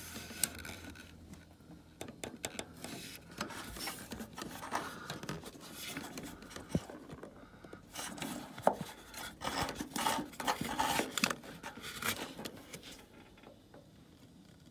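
Handling noises in a small room: scattered knocks, clicks and rubbing or scraping of things being moved about. They are busiest a little past the middle and die down near the end.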